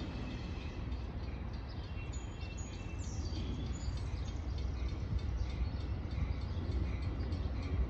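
Small birds chirping, with short high calls and a quick rising glide about three seconds in, over a steady low background rumble.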